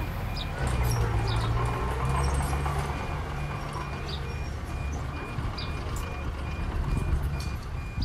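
Diesel engine of heavy earthmoving equipment running, its low drone swelling and easing with the load, with a rapid regular high beeping over it and faint clanks.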